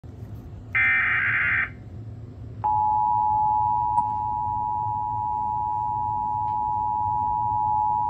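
Emergency Alert System tones from a TV speaker. About a second in comes a short burst of SAME digital header data. From just under three seconds the EAS attention signal starts: two steady tones at 853 and 960 Hz sounding together, which announces a severe thunderstorm warning.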